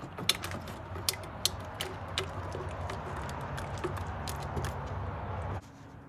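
Stir stick scraping and knocking against the inside of a metal paint can as thick high-build primer is stirred. There are irregular sharp knocks, most of them in the first half, and the sound cuts off suddenly near the end.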